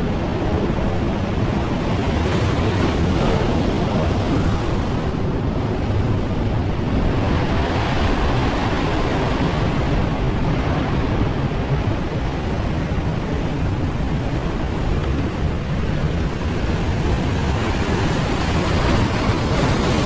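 Heavy surf breaking and washing over a rock ledge, a continuous loud rush of water, with wind rumbling on the microphone.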